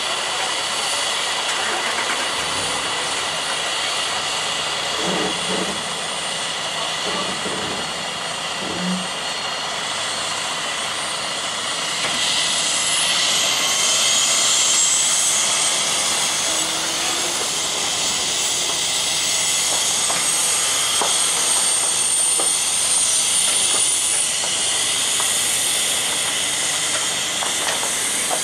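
Heavy diesel truck idling with a steady hiss and high whine; about twelve seconds in a whine rises in pitch and the sound grows a little louder.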